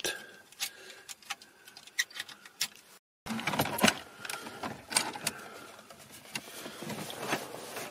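Small irregular clicks and ticks of an Allen key winding back the retaining-clamp screws of a BMW E36 factory dash radio. After a brief break in the sound about three seconds in, the metal-cased radio slides and scrapes out of its dash slot with denser clicking.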